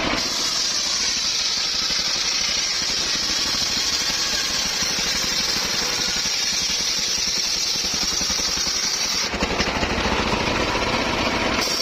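Engine-driven circular saw cutting timber: a steady high-pitched blade whine over the running engine. About nine seconds in the cutting sound drops away for about two seconds, leaving the engine's low rumble, then the high whine comes back.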